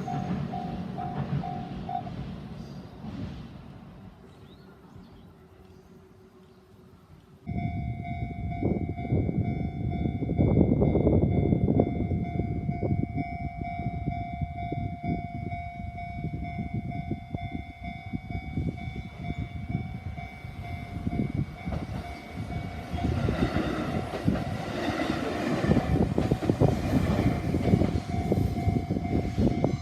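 A level-crossing warning bell and train rumble fade away over the first few seconds. About seven seconds in, a crossing warning bell starts suddenly, ringing steadily while a two-car JR 313 series electric train rumbles across. The train noise is loudest a few seconds after the start and again through the last third.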